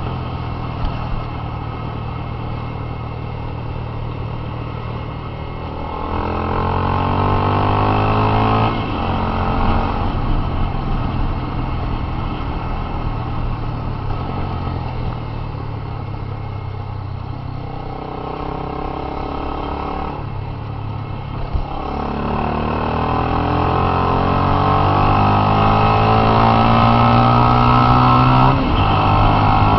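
Honda CB 300 motorcycle's single-cylinder engine through a Fortuna mini aftermarket sport exhaust, riding. It drones steadily at first. About six seconds in it revs up, cuts off briefly near nine seconds as it shifts gear, and then eases back. From about twenty-two seconds it pulls up again in a long rising run, with another shift near the end.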